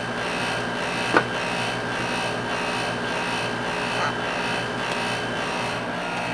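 Air-conditioning unit running with a steady rasping buzz from a sheet-metal panel rubbing against the unit at one corner. A single sharp click about a second in.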